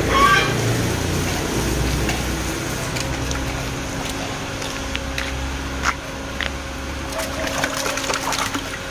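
Water sloshing and splashing in a catfish tank as plastic mesh sorting baskets are handled, with scattered sharp clicks and knocks of the baskets, most frequent in the second half, over a steady machine hum.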